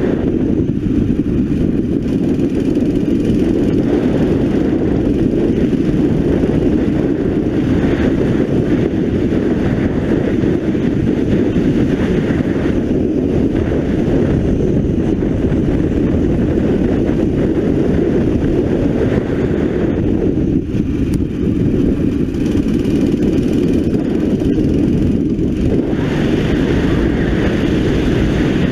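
9 hp racing kart engine running hard under load, heard from on board the kart as a loud, steady drone. The sound eases briefly a few times as the kart slows for corners.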